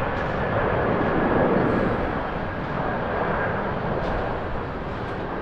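China Airlines Airbus A330-300 jet engines at takeoff thrust during the takeoff roll and lift-off: a steady rushing engine noise that eases slightly after about two seconds.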